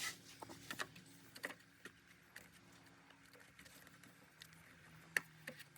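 Faint, scattered light clicks and taps of small metal parts and hand tools being handled, with one sharper click about five seconds in.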